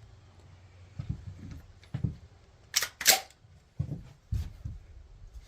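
Handling noises: a few dull thumps and, near the middle, two sharp metallic clacks about a third of a second apart, the second the loudest.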